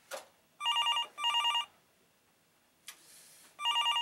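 Office desk phone ringing with an electronic trilling ring: two half-second rings in quick succession about a second in, then another starting near the end.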